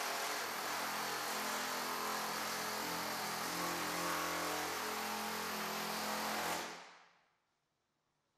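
Pneumatic air hammer fitted with a door-skin forming head running steadily, working a car door skin's edge over to a 45-degree angle at reduced air pressure. The sound fades out about seven seconds in.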